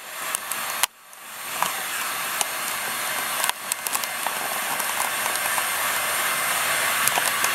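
Heat gun running, a steady rushing hiss of hot air blowing onto a liquid-powder-coated steel panel to cure the coat. It drops away suddenly about a second in and swells back up, with a few faint ticks.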